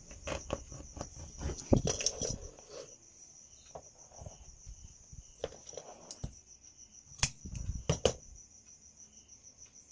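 Tailor's shears cutting folded blouse fabric and the cloth being shifted on the table, with a few sharp snips and clicks, the loudest about two seconds and seven seconds in. A steady high insect chirping runs underneath.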